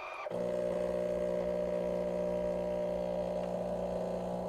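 Krups Falcon superautomatic espresso machine brewing a shot, its pump running with a steady hum that sets in a moment after a higher-pitched machine tone and stops abruptly at the end.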